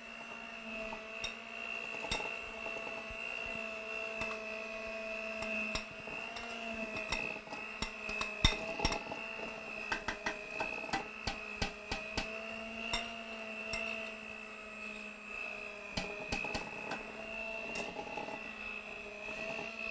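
Handheld electric mixer running steadily with a constant whine as its beaters work a thick cake batter in a stainless steel bowl. Sharp clicks and taps of the beaters against the metal bowl are scattered over it, busiest from about seven to seventeen seconds in.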